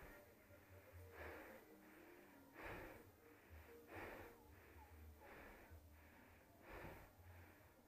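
A mountain biker breathing hard close to the microphone, about six heavy breaths in eight seconds, in and out in an even rhythm.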